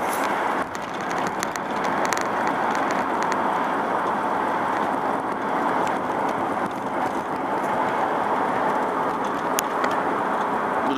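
Steady road and wind noise of a car driving at highway speed, heard from inside the car, with a few faint clicks.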